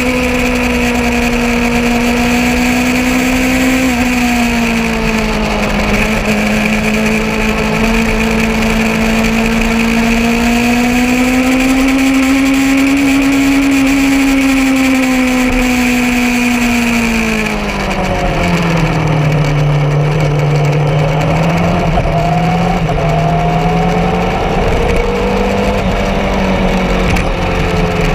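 Yamaha R6 motorcycle's inline-four engine running at a fairly steady high rev with gentle rises and falls, over a rushing hiss. About two-thirds of the way through the revs drop to a lower steady note and the hiss eases as the bike slows.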